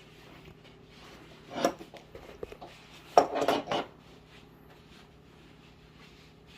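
Hard scan-tool adapter connectors clinking and rattling as they are handled, with a short clatter about one and a half seconds in and a longer rattle a little after three seconds. A steady low hum runs underneath.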